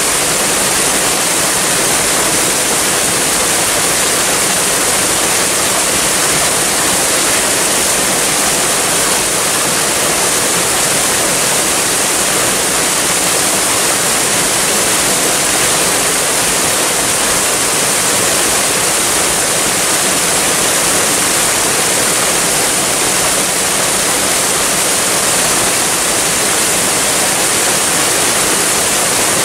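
Waterfall: falling water rushing with a steady, unbroken hiss.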